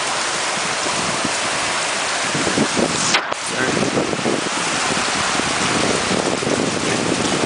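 Heavy rain pouring down and floodwater rushing over a street, a loud, steady hiss, with one brief sharp knock about three seconds in.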